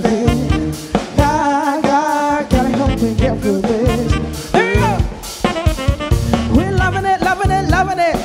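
Live party band playing an upbeat song, with a steady drum-kit beat, singing and horns.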